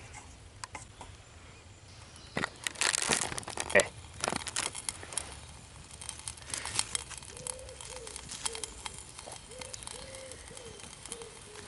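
Small twig campfire crackling and popping, with a cluster of louder crackles about three to four seconds in. From about seven seconds a bird calls in a string of short, low notes.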